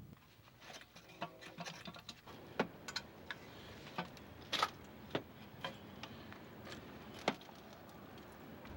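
Irregular metallic clicks and clinks of hand tools and small metal parts being handled and set down, with a short metallic ringing about a second in and a sharper knock near the end.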